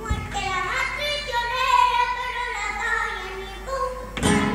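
A young child singing a carnival presentación to Spanish guitar accompaniment, with the sound growing louder near the end.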